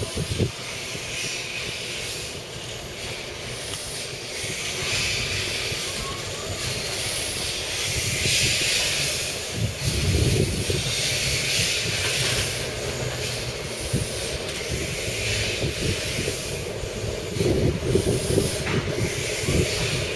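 Steam hissing from an LSWR M7 0-4-4T tank engine moving slowly with a class 08 diesel shunter, swelling in surges every second or two. Low rumbling and a few clanks from the locomotives come in about halfway through and again near the end.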